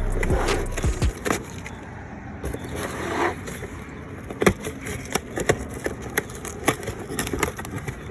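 A cardboard package being opened and handled: irregular clicks and knocks with short bursts of rustling and tearing.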